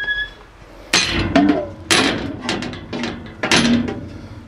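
Metal bars of a dog enclosure's gate clanking and rattling as the gate is handled. There are three sharp knocks, each followed by a quick run of smaller clicks, and a brief high squeak at the very start.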